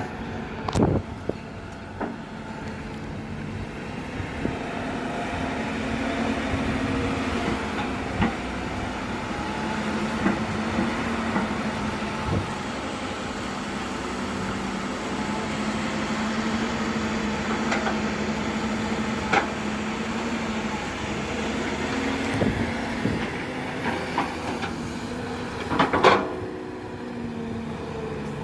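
Hyundai Robex 210-7 excavator's diesel engine running steadily under working load, with scattered sharp clanks and knocks, the loudest about a second in and near the end.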